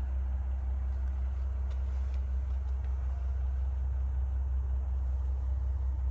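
A steady low rumble, with a few faint light ticks about two seconds in.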